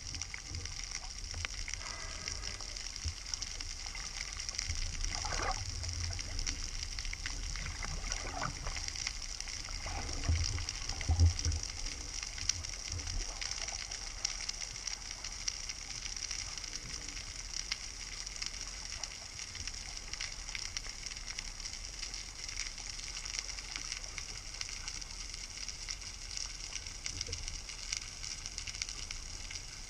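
Underwater ambience heard through an action-camera housing: a steady fizzing, crackling hiss. A few low knocks and bumps come in the first half, the loudest about ten to eleven seconds in.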